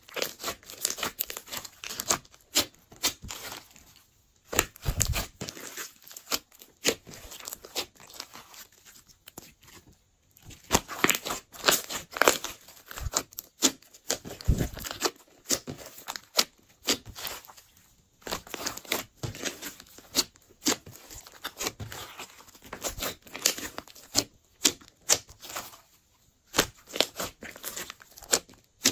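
Hands squishing, pressing and folding a large mass of glossy slime mixed with clay, making sticky crackling clicks in irregular runs with short pauses.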